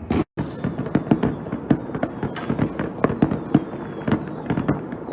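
A fireworks salute going off: a dense run of bangs and crackles, several a second. The sound drops out completely for a moment just after the start.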